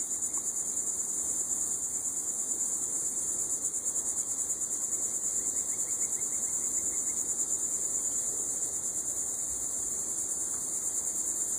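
A steady, high-pitched insect chorus, a continuous buzz with a fast, even pulse.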